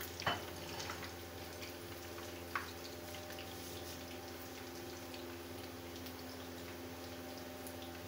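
Breadcrumb-coated bread rolls deep-frying in hot oil in a wok: a steady bubbling sizzle with a few sharp pops, the loudest just after the start and about two and a half seconds in.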